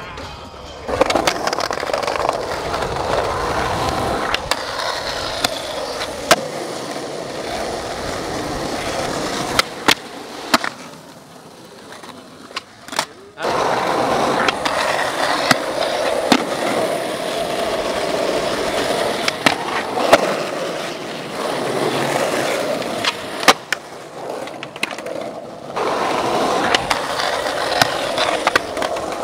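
Skateboard wheels rolling on pavement, over and over, broken by sharp pops and clacks of the board's tail and trucks striking the ground as tricks are done. Near the end the trucks grind along the edge of a ledge.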